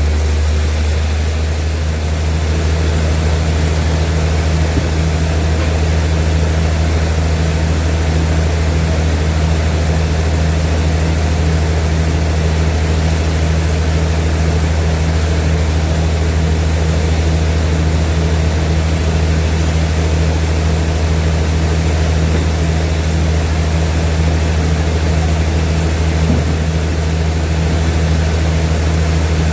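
Large sawmill machinery running steadily: a constant low hum with noise over it, unchanging throughout.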